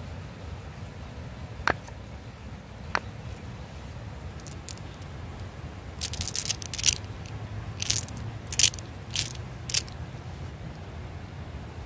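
Small hard marbles clicking and clinking against each other in a hand, in several quick clusters, after two single sharp knocks, over a steady low background rumble.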